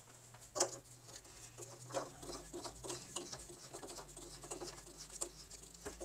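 Faint scattered clicks and scrapes as a garden hose's coupling is handled and screwed onto a water heater's brass drain valve. The sharpest click comes about half a second in.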